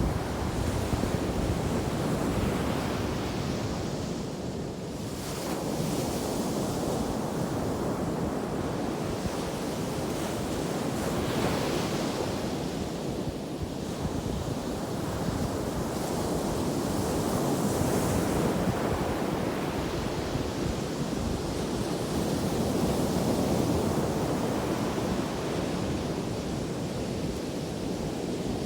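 Ocean surf breaking and washing on a beach, swelling and ebbing every few seconds, with wind buffeting the microphone.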